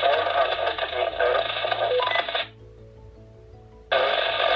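A voice coming through a SilverCrest PMR walkie-talkie's small speaker, thin and garbled with static, breaking off about two and a half seconds in; a second short burst of radio noise comes near the end. The transmission is sent from several hundred metres away and is too broken to make out.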